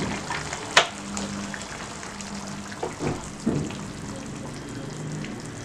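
Sardine curry simmering and bubbling in a pan on a gas stove. A sharp click comes about a second in, and a few soft knocks around three seconds in.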